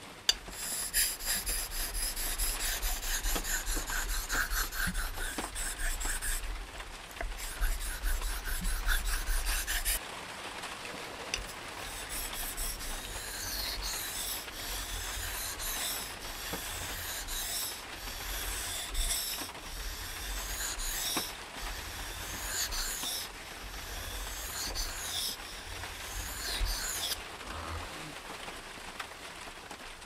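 Steel knife blade scraped back and forth on a wet sharpening stone: fast, short strokes for about the first ten seconds, then slower, longer strokes with a rising and falling scrape, stopping a few seconds before the end.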